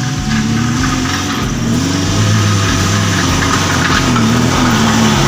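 Off-road jeep engine running at low revs, its pitch rising and falling slightly.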